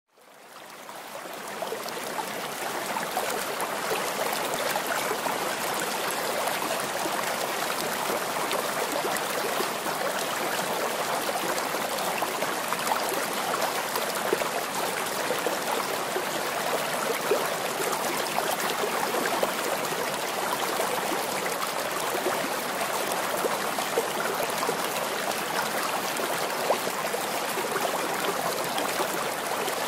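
Steady rush of running water, fading in over the first two seconds and then holding even.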